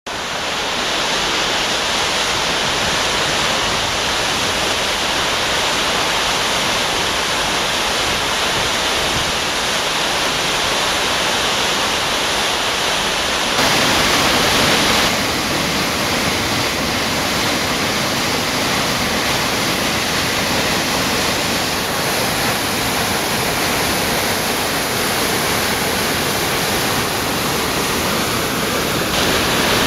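Flash-flood torrent of muddy water rushing down a desert arroyo and pouring over a rock ledge, roaring steadily. It grows louder for a second or two about halfway through.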